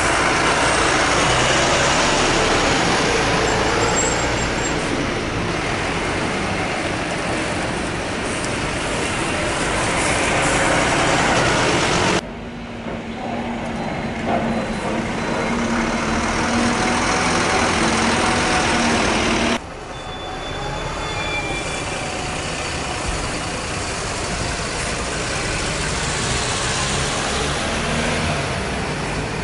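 City buses, among them a Volvo, running and driving past close by, with engine and tyre noise over street traffic. The sound cuts abruptly twice between clips, and in the middle clip an engine hum holds one steady pitch.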